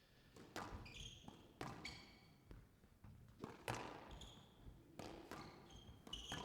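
Squash rally: the ball cracking off rackets and the court walls about once a second, with short high squeaks from players' shoes on the court floor between the hits.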